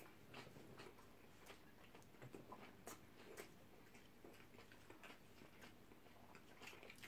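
Faint eating sounds from people chewing shawarma wraps: irregular soft mouth clicks and smacks, otherwise near silence.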